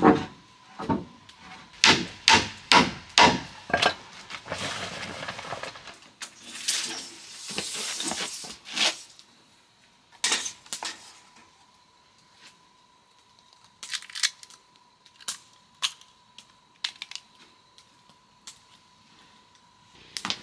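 Hammer blows on wood, about two a second for the first few seconds, then a few seconds of scraping on wood and a handful of scattered knocks.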